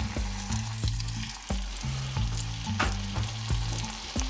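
Bacon-wrapped steak and hash brown roll sizzling in hot fat in a frying pan, with scattered crackling pops. A low bass line of background music runs underneath.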